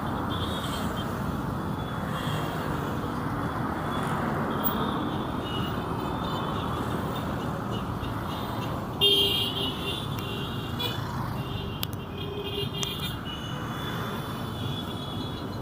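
Busy street traffic noise with passing vehicles; about halfway through, a vehicle horn toots suddenly, with shorter pitched sounds following a few seconds later.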